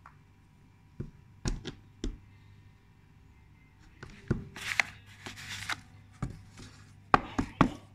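A cat's paws knocking and scratching on the inside of a cardboard box: scattered sharp taps, with a longer stretch of rustling scratching in the middle and a quick cluster of knocks near the end.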